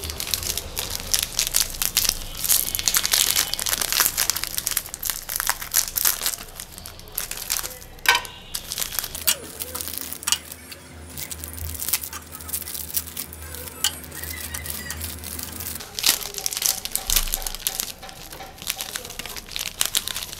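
Plastic Olino wafer wrappers crinkling and tearing as packet after packet is opened by hand, in irregular bursts of crackle.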